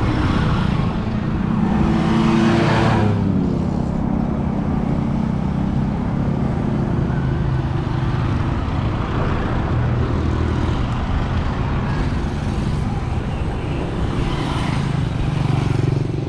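Road traffic: cars and motorcycles passing one after another over a steady low engine rumble. There are louder passes about two and a half seconds in and twice near the end.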